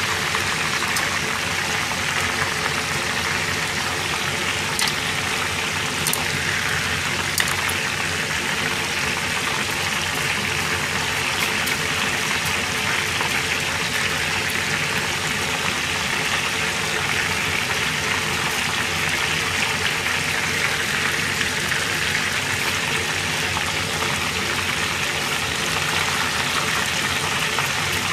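Hot oil sizzling steadily as food deep-fries, with a steady low hum underneath. The sizzle is still full, so the food is still cooking: by the cook's rule, the frying is done when this sound goes quiet.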